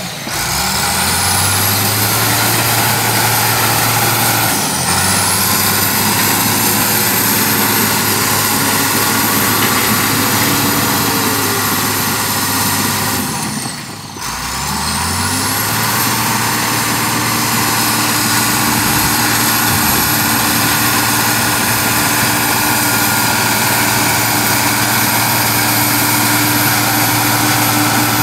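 International Harvester TD-15C crawler dozer's diesel engine running under load as the machine works. Its speed drops briefly and picks back up three times: near the start, about five seconds in, and more deeply about fourteen seconds in.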